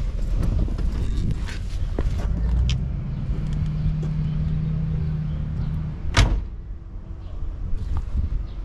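Driver's door of a 1972 Oldsmobile Cutlass slammed shut about six seconds in, one heavy knock. Before it, the key-left-in-ignition warning buzzer hums steadily for about three seconds and stops as the door closes.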